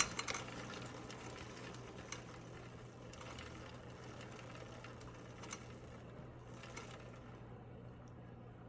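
Bicycle drivetrain running quietly as the cranks are turned, chain running over the chainrings and cogs while the front derailleur is checked for rubbing, with a few faint ticks over a steady low hum; the running sound thins out near the end.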